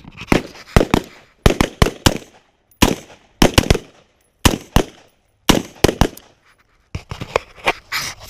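Rifle fire: many sharp shots in irregular pairs and short strings, each followed by a brief echo.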